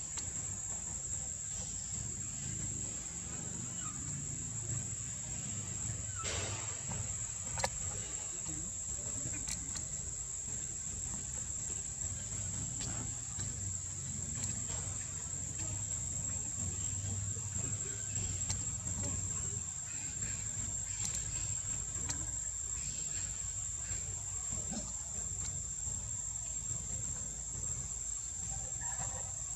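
Insects chirring in a steady, unbroken high-pitched tone, over a low rumble and a few faint clicks.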